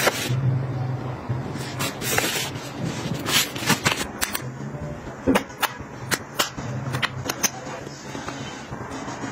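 Fabric drawstring pouch rustling and small makeup cases being handled, with irregular sharp clicks and taps as the cases knock together.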